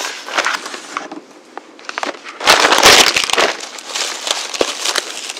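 Packaging wrap crinkling and rustling as a small parcel item is unwrapped by hand, loudest in a burst of crackling and handling bumps about two and a half seconds in.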